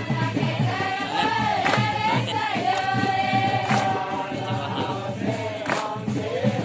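A group of voices singing or chanting a held, wavering melody over quick drumming, with a sharp strike about every two seconds.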